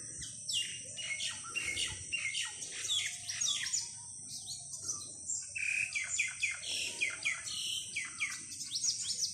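Several songbirds chirping and calling, many short quick downward-sliding chirps overlapping one another, over a steady faint high-pitched hiss.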